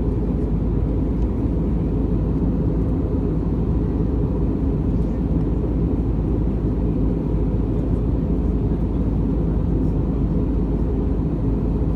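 Steady in-flight cabin noise of an Airbus A320-232, heard inside the cabin: a low, even rumble of its IAE V2500 engines and the airflow over the fuselage.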